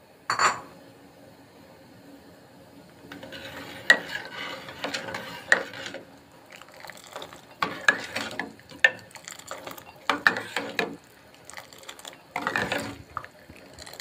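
A steel ladle stirring tea in an aluminium pot, clinking and scraping against the metal sides, with the liquid sloshing. Near the end, ladlefuls of tea are poured back into the pot with a splashing pour. A short loud rattle comes just after the start.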